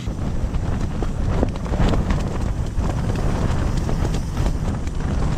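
Strong gusting wind buffeting the microphone: a deep, steady rush with irregular sharp flapping knocks through it.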